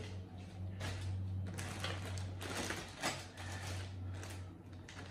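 Plastic packaging bags rustling and crinkling as parts are handled, with a couple of sharper knocks of hard plastic against the tabletop, about a second in and about three seconds in. A steady low hum runs underneath.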